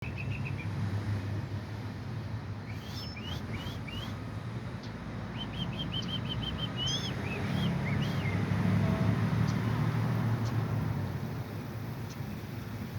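Songbirds chirping in short calls and quick runs of notes, mostly in the first half, over a steady low rumble that grows louder around the middle.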